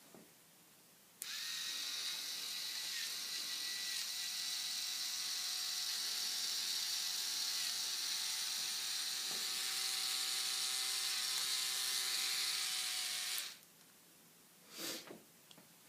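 Small K'nex electric motor whirring steadily with a high whine. It switches on suddenly about a second in and stops suddenly near the end.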